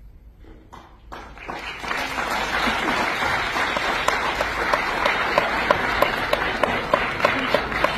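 Audience applause that breaks out about a second in and swells to a steady full level. From about midway, a few nearby hands clap loudly and evenly above it, roughly three claps a second.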